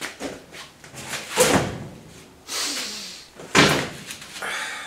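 A loose car seat used as a makeshift chair being shifted and sat on: a string of knocks and bumps with short scrapes. The loudest thump comes about three and a half seconds in.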